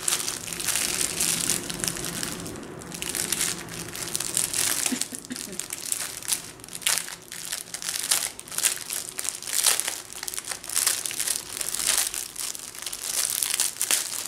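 Plastic packaging crinkling and rustling in irregular crackles as hands unwrap a bundle of small plastic bags of diamond-painting drills.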